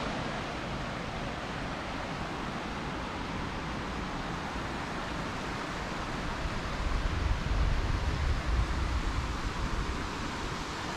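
Steady rush of a mountain creek. Wind buffets the microphone in low gusts from about six seconds in until near the end.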